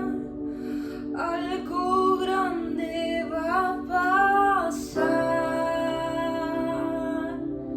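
A woman singing a worship song over plucked guitar. Her melody moves through several phrases in the first half, then she holds one long note.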